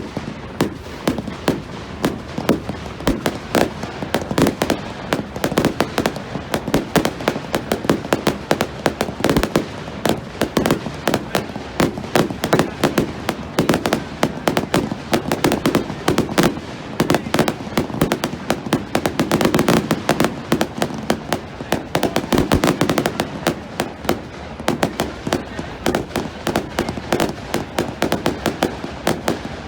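A fireworks display with rapid, continuous cracking and popping, many reports a second, over a steady rumble of bangs.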